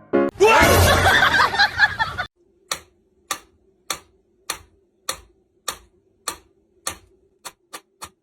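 A loud, noisy burst with a wavering pitch for about two seconds, then a run of sharp ticks about every 0.6 s over a faint steady hum, the ticks coming faster near the end.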